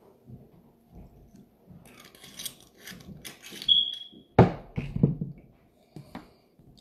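A man drinking from a glass bottle: quiet sips and breathy noises, a short high beep just before the middle, then a loud sudden breath as he lowers the bottle, its loudest moment.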